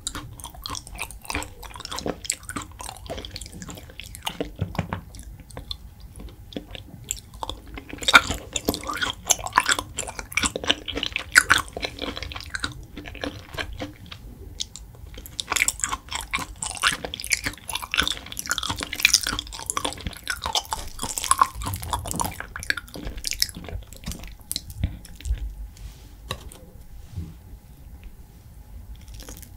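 Close-miked chewing of raw beef (yukhoe), a dense run of small moist clicks and squelches that comes and goes in bouts.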